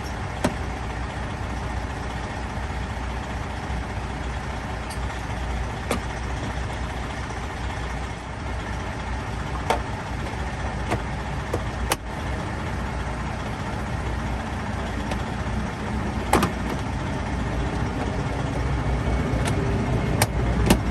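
Steady low rumble of an idling truck engine, with a few scattered sharp clicks and knocks of tools and parts being fitted.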